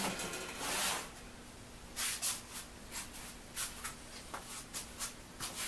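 Light rustling and a scatter of small clicks and scrapes, about ten in the last four seconds, over a faint steady hum.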